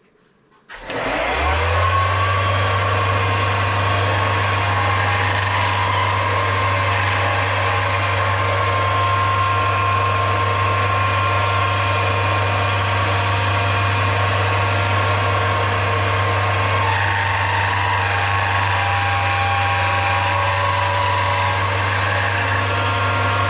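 Mini metal lathe started about a second in, its motor spinning up with a short rising whine and then running steadily with a low hum. During two stretches of several seconds a higher hiss joins in as the tool cuts the spinning Delrin tube.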